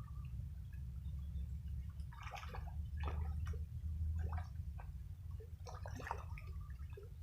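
Water splashing and dripping in short, irregular bursts over a steady low rumble, most of it in the second half.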